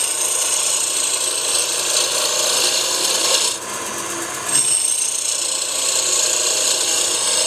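Roughing gouge cutting a spinning block of hardwood on a wood lathe, a hissing cut in two passes with a short break about three and a half seconds in, over the steady running of the lathe. The gouge is cutting downhill, from the large diameter towards the small, to taper the blank into a cone.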